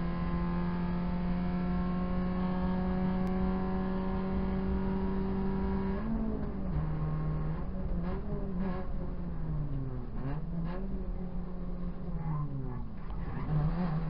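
Proton Saga BLM race car's four-cylinder engine heard from inside the cabin. It pulls hard with its pitch slowly climbing, then about six seconds in the revs drop and swing up and down several times as the car slows and takes a corner. It picks up again near the end.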